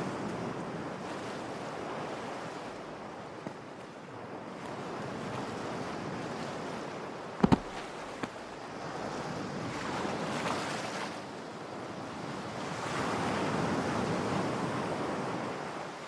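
Sea surf breaking and washing up a sandy beach, the waves swelling and falling back, with a short, sharp thud about halfway through.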